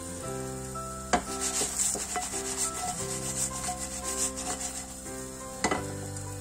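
Eggplant cubes being turned and scraped around a nonstick frying pan, a rasping rub with a sharp knock about a second in and another near the end.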